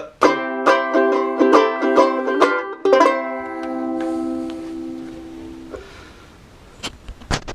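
A group of ukuleles strumming the closing chords of a song, ending on one last chord that rings and fades out. A few sharp knocks near the end.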